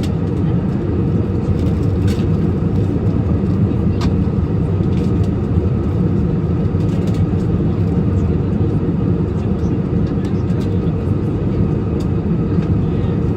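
Steady, loud drone of an airliner cabin in flight: engine and airflow noise, deep and unbroken, with a few faint clicks.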